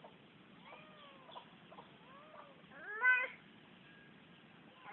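Domestic cat meowing: a few soft, short meows, then one louder rising meow about three seconds in.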